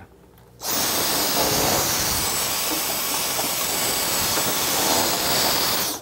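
Small handheld vacuum cleaner switched on about half a second in, running with a steady high-pitched rush as it sucks dust off a refrigerator's condenser coils, then cut off suddenly at the end.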